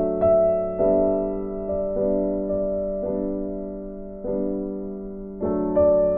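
Background music: slow, gentle keyboard chords, a new chord struck every second or so and left to ring and fade.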